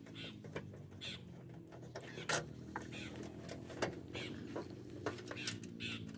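A bird chirping repeatedly, about once a second, over a steady low hum, with a few sharp clicks.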